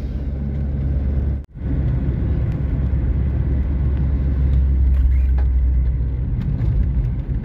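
Ford Sierra driving, heard from inside the cabin: a steady low rumble of engine and road noise. The sound cuts out for an instant about a second and a half in.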